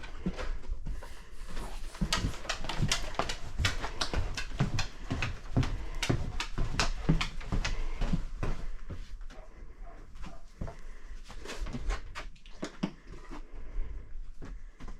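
A scent-detection dog sniffing hard as it searches, in a fast string of short breathy bursts about five a second that thin out after about eight seconds.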